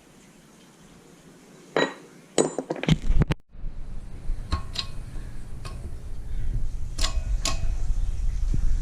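Metal parts clinking and knocking together as they are handled and set down, a couple of seconds in and then every second or so. From about a third of the way in, a steady low hum runs underneath.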